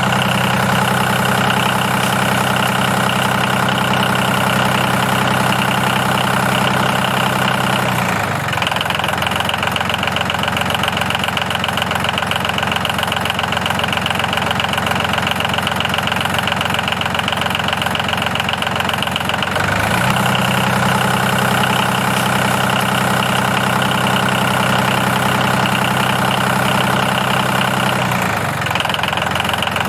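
Tractor engine idling steadily. Its note shifts about eight seconds in, shifts back about twenty seconds in, and shifts again near the end.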